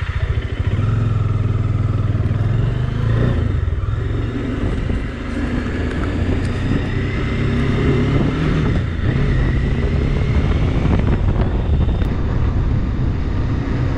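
Motorcycle engine running as the bike is ridden along a road, its pitch rising and falling with the throttle.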